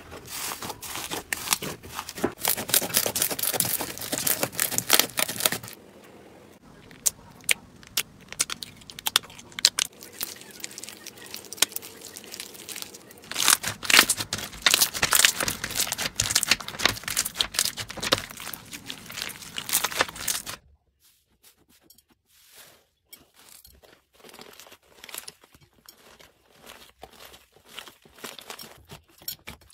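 Slime squished, pressed and pulled by hand, making dense crackling, popping clicks, with slime full of small foam beads crunched between the hands in the middle. The crackling is loud at first, softer for a stretch, loud again, and much quieter and sparser for the last third.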